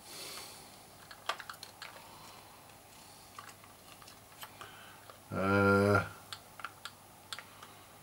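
Light plastic clicks and taps as the opened joystick's case and parts are handled on a mat. About five seconds in comes a brief, steady low hum, the loudest sound here.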